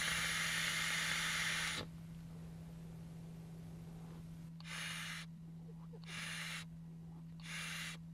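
A long direct-lung draw through a Steam Crave Meson AIO Boro mod with a dual-coil bridge at 70 watts: an airy hiss that stops about two seconds in. A few short breathy hisses follow, about one every second and a half. The draw is a test that the wicking keeps up at this wattage, which it does.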